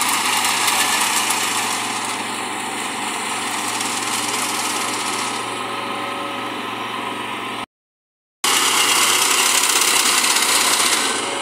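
Rice combine harvesters' engines running steadily while cutting standing rice. The sound drops out completely for under a second about eight seconds in and comes back louder.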